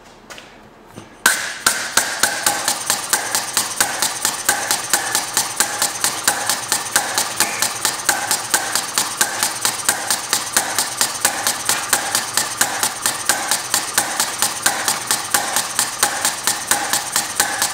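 A small model hit-and-miss engine running on compressed air starts about a second in and keeps up a rapid, even train of sharp mechanical clicks and air puffs over a steady air hiss. It runs in hit-and-miss mode, with a flyball governor latching the inlet valve shut until the engine slows. The exhaust pipe is not yet fitted, so the air vents straight out.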